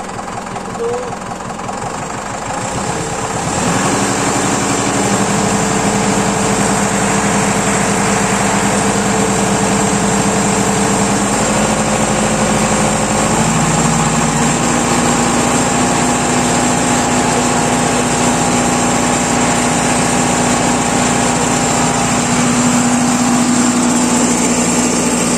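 Sonalika tractor's diesel engine running, quieter at first, then louder about three and a half seconds in, its speed raised in steps over the next ten seconds and then held steady. This is the throttle being set so that the PTO shaft turns at about 540 rpm.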